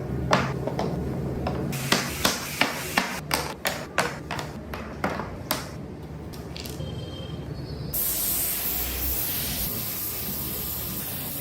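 Mallet-and-chisel strikes on wood, a quick run of sharp knocks about three a second that thins out after about five seconds. From about eight seconds a steady spraying hiss takes over.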